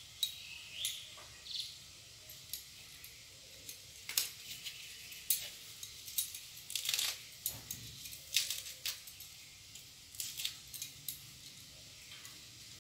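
Small knife cutting and snapping fresh bottle gourd leaves and tender stems into pieces by hand: an irregular series of crisp snips and crackles, with a few light clinks.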